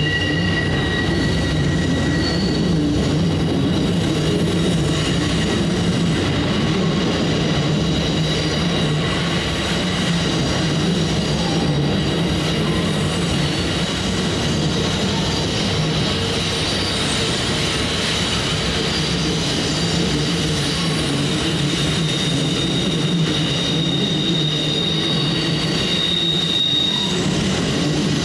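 Amtrak Superliner bilevel passenger cars rolling past on a curve, their steel wheels squealing against the rail in several high steady tones that fade in and out over a continuous low rumble of wheels and trucks.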